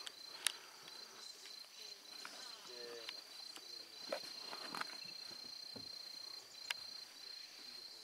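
Insects trilling: a steady high-pitched note that breaks into rapid pulsing beats for a few seconds, then runs on steadily. A couple of sharp clicks and faint, brief voices sit underneath it.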